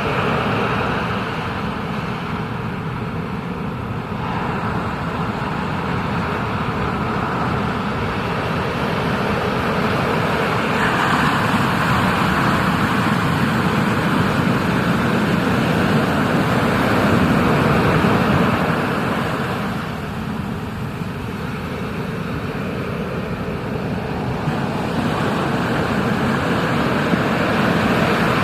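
Ocean surf and rushing water heard close up from a surfer's camera, a steady rush that swells louder about a third of the way in, eases off past the middle, and builds again near the end.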